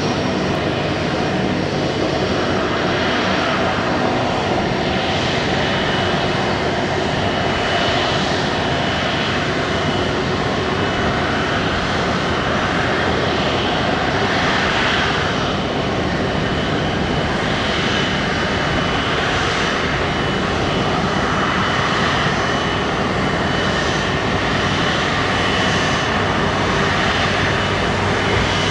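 Airbus A330-243 airliner's Rolls-Royce Trent 700 jet engines running, a steady loud rushing noise with a thin high whine held throughout, swelling a little about every two seconds.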